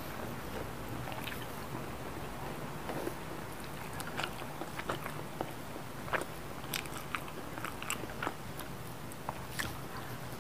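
A person chewing and biting fried chicken nuggets close to the microphone, with many short, sharp wet mouth clicks that come thickest from about four seconds in.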